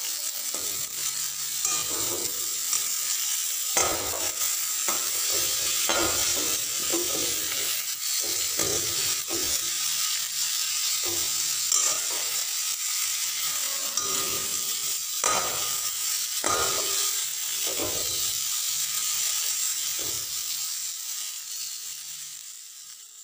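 Quartered onions sizzling in hot oil in a metal wok, with a spoon scraping and knocking against the pan as they are stirred. The sizzle fades out near the end.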